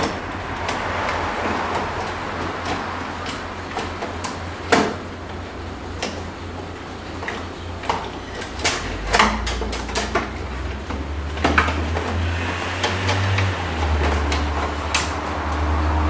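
Irregular sharp clicks, knocks and rattles of hands and a tool working inside a BMW E39 door shell, freeing the door handle and lock cylinder, over a steady low hum.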